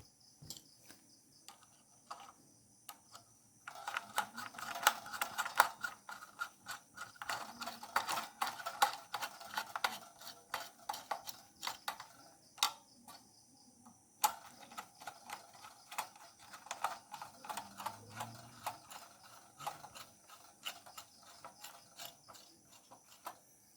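A screwdriver turning small screws to mount a motherboard in a computer case: dense runs of quick metal clicks and ratcheting, left loose for now so the board can be tested first.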